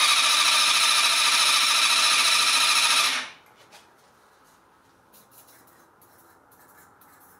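Electric starter of a Yamaha 250 cc sport bike cranking the engine in one steady whir for about three seconds without it catching, then stopping suddenly. This is the first start attempt after ten years of sitting. A few faint short hisses follow as starter spray is squirted into the carburettors.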